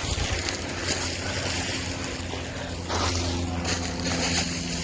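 Wind rumbling on the microphone with rustling and handling noise, a little louder about three seconds in.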